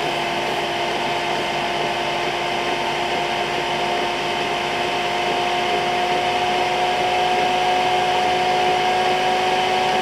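Chinese diesel heater's combustion-air blower fan running at about 3,000 rpm with a steady whine that slowly rises in pitch and gets a little louder as the fan speeds up through the heater's start-up preheat stage.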